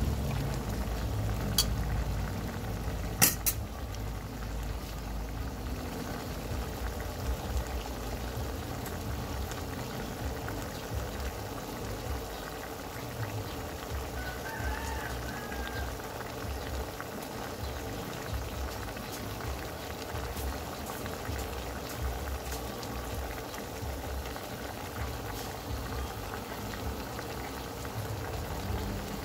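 Adobo sauce with pork hock, potatoes and saba bananas bubbling at a steady boil in a metal pan as it reduces and thickens. Two sharp clicks come within the first few seconds.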